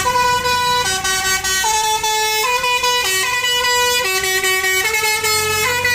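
Telolet bus horn, a multi-tone musical horn, playing a loud tune of held notes that step up and down, about a dozen notes in all.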